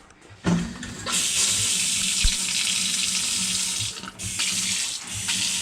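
Water running from a newly installed kitchen faucet into the sink, starting about a second in after a short thump, with a brief break near four seconds.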